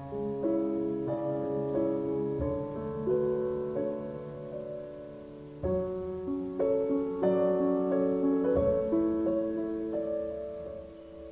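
Slow piano music for a figure skating program: a melody of held notes over chords struck every few seconds and left to ring.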